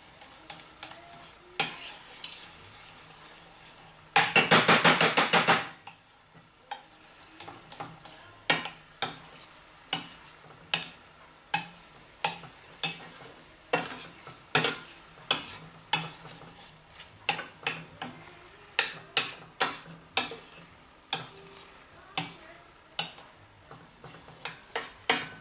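A metal spoon stirring bananas in a stainless steel skillet on the burner, with a steady sizzle under repeated sharp clinks and scrapes of the spoon against the pan, about one or two a second. About four seconds in, a loud, fast run of even clicks lasts about a second and a half.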